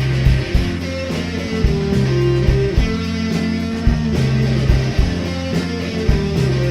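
Psychedelic rock band playing live, an instrumental passage: electric guitars over bass and drums at a steady beat.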